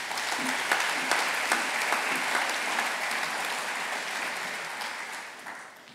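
Audience applauding, loud at first and slowly fading away towards the end.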